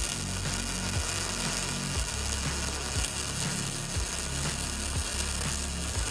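Prime Weld MIG180 MIG welder arc crackling and sizzling steadily while a bead is laid over a crack in a steel mower deck. Background music with a low bass line plays underneath.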